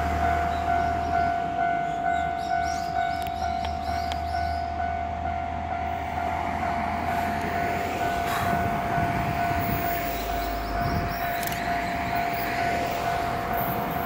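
Japanese railway level-crossing alarm ringing, a steady electronic clang repeating evenly, with the barriers down. The rumble of a train on the line is heard under it, swelling about eight seconds in.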